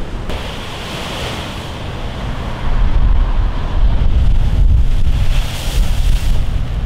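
Heavy storm surf from hurricane swell breaking against a concrete sea wall, its hiss of spray and foam surging twice, just after the start and again near the end. Wind buffets the microphone with a low rumble that grows louder from about two and a half seconds in.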